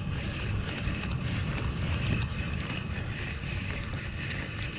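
Steady wind noise on the microphone over water around an ocean kayak, without any distinct events.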